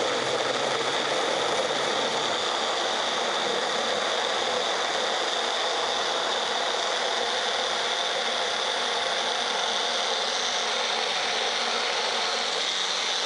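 Bullet-style personal blender running steadily, its motor whirring with a steady high whine as it blends frozen berries and yogurt into a thick smoothie.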